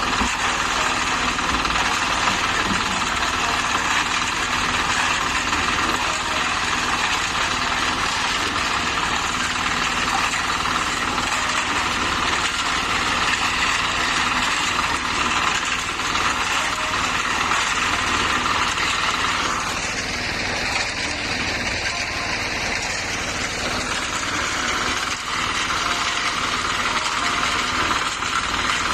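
Engine of a portable concrete mixer running steadily, with a slight easing in level about two-thirds of the way through.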